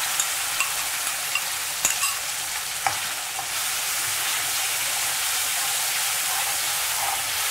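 Tomato and cashew paste sizzling as it goes into hot oil and fried masala in a metal kadhai, an even hiss. A perforated metal stirring spoon scrapes and clicks against the pan a few times in the first three seconds.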